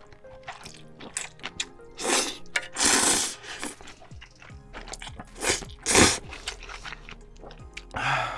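Close-miked eating sounds: several crunchy bites, chewing and slurps of spicy ramen, over soft background music.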